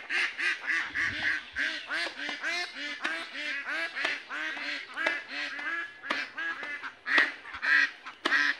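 A flock of ducks quacking continuously, many short nasal quacks overlapping several times a second.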